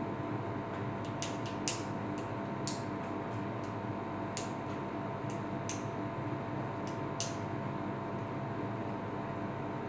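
Steady room tone: an even hiss with a low electrical hum and a couple of thin steady tones, broken by a handful of short sharp clicks at irregular moments.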